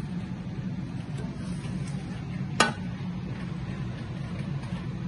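Aluminium steaming tray clinking once, sharply, about two and a half seconds in, as raw fish is laid into it, over a steady low background hum.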